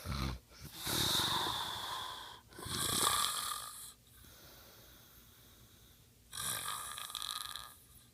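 A sleeping man snoring: two long noisy breaths close together, then a third after a pause of about two seconds.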